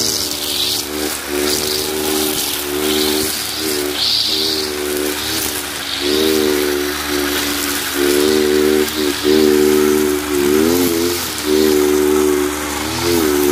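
Kawasaki TJ45 two-stroke brush cutter running at high speed as it cuts overgrown grass, its engine note sagging briefly a few times as the cutting head takes on load and then picking up again, with a hissing swish of grass and debris being thrown.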